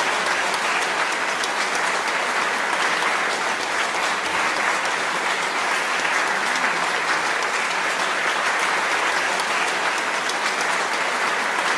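Audience applauding steadily: a dense, even mass of handclaps.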